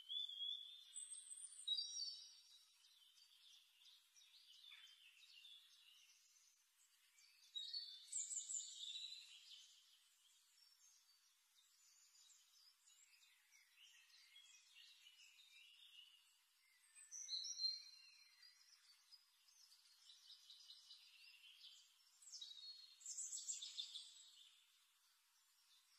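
Faint birdsong: high-pitched chirps and short trills in louder bursts every several seconds, with quieter chirping in between.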